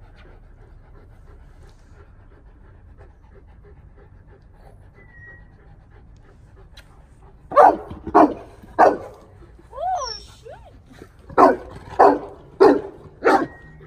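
Saint Bernard panting softly, then barking loudly for attention, seven short barks in two groups of three and four, with a brief whine between the groups.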